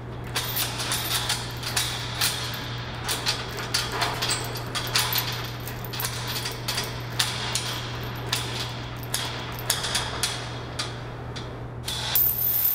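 A rapid, irregular run of sharp clicks and knocks over a steady low electrical hum.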